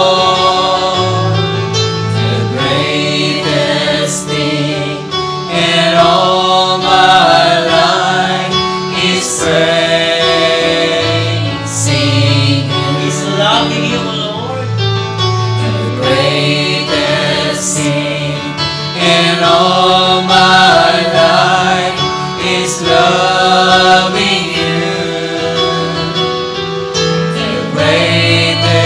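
A praise and worship song sung by vocalists with band accompaniment.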